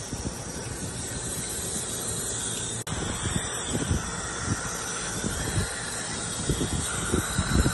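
Garden hose spray nozzle running, water hissing onto a dog's wet coat and the concrete, with a momentary break just under three seconds in.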